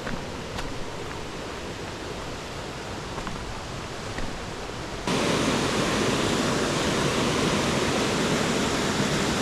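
Steady rush of a shallow mountain river's current running over rocks. About five seconds in it jumps suddenly louder and fuller and stays that way.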